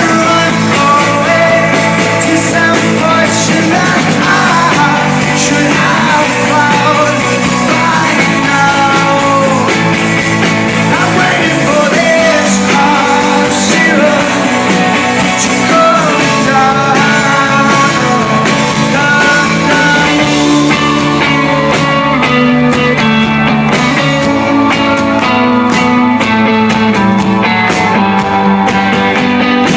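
Live rock band playing, with singing over guitars.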